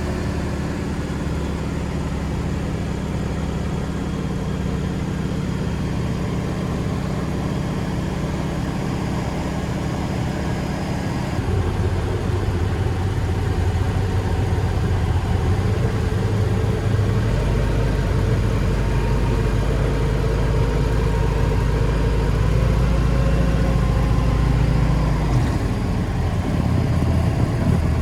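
Yak-18T's nine-cylinder M-14P radial engine and propeller running steadily. About eleven seconds in, the drone gets louder and deeper, and it shifts again near the end.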